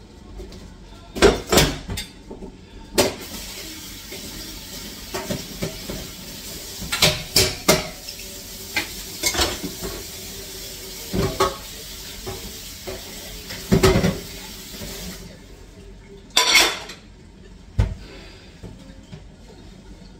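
Kitchen clatter: about a dozen sharp knocks and clinks of pots, dishes and utensils being handled and set down, over a steady hiss that stops about fifteen seconds in.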